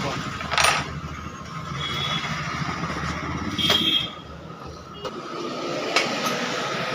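TVS Ntorq scooter's single-cylinder engine started up and running with the silencer removed, freshly repaired for a knocking 'khat khat' noise.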